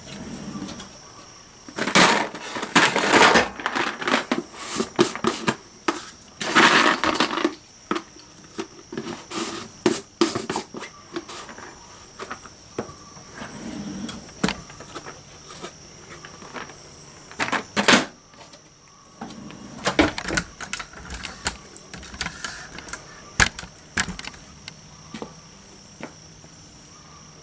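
Rummaging in a workbench drawer: the drawer sliding and tools and small metal parts clattering in two loud bursts, followed by scattered sharp clicks and knocks of tools being picked up and set down.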